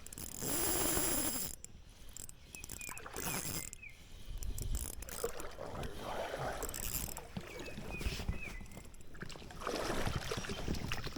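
Ultralight spinning reel being cranked and its drag ticking while a hooked smallmouth bass pulls against the line.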